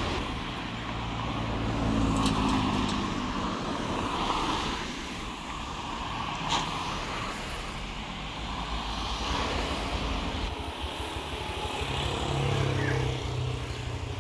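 Road traffic: cars driving past, their engine and tyre noise swelling and fading twice, with one short sharp sound a little past halfway.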